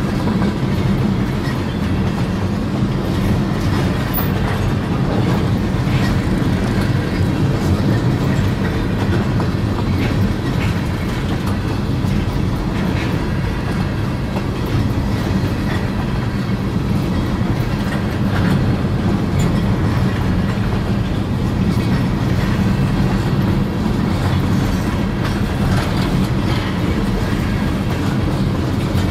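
Freight train's gondola cars rolling past: a steady rumble of steel wheels on the rails, with scattered faint clicks.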